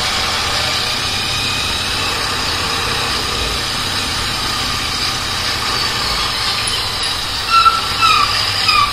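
Royal Enfield Interceptor 650's parallel-twin engine running at low speed in town traffic, under a steady rush of road and wind noise on the microphone. A few short, high squeals near the end.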